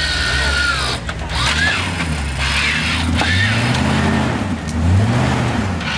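Off-road 4x4's engine revving up and dropping back in repeated bursts as it crawls over boulders, with a few high sliding whistle-like tones over it.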